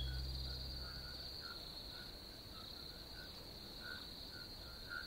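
Night-time insect chorus: a steady high-pitched trill, with short chirping calls repeating irregularly two or three times a second. The bass of a music track fades out in the first second or so.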